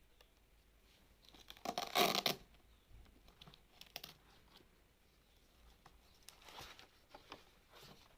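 Packaging being torn open: one loud tearing rasp about two seconds in, followed by lighter rustling and small clicks as the material is handled.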